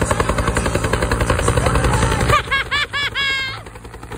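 Bell UH-1 Huey-type helicopter passing low overhead, its two-bladed main rotor beating rapidly. About two and a half seconds in there is a short burst of high-pitched laughter or shrieking, and near the end the rotor sound drops away to a fainter beat.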